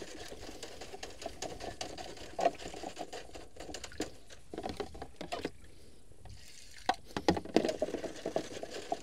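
Stiff brush scrubbing quickly back and forth inside a dirty metal part: a dense run of scratching, scraping strokes as it works caked dirt loose.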